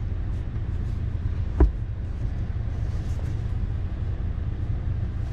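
One sharp plastic click, about a second and a half in, as the new sun visor is handled against the headliner, over a steady low rumble.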